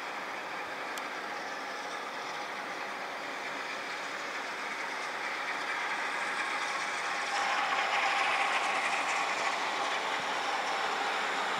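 Steam locomotive Clun Castle, a GWR Castle-class 4-6-0, approaching with its train, its running noise and rail clatter getting steadily louder, with a clear jump in loudness about seven seconds in.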